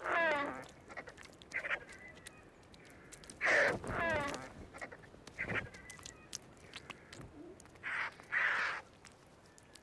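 Turkey vultures giving a string of short, raspy hissing calls, about half a dozen, some with a grating pitched edge, and faint clicks between them.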